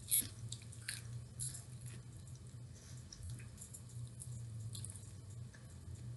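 Close-up mouth sounds of chewing food: soft, wet smacks and clicks at irregular intervals, strongest about a second in and at the start, over a low steady hum.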